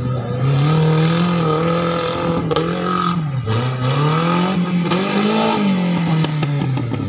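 1000cc-class tubular off-road buggy engine revving hard, its pitch sweeping up and down. The pitch drops sharply about three and a half seconds in and again near the end.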